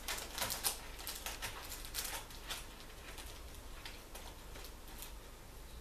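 A cat rummaging with its paws and head inside a low wooden cabinet: a quick run of rustles and scratchy clicks that thins out after about two and a half seconds.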